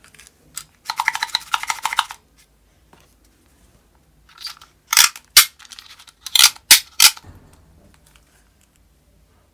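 Plastic toy dart shotgun being handled and loaded with a suction-cup dart. A buzzing plastic rattle comes about a second in, then a string of sharp plastic clicks between about five and seven seconds in.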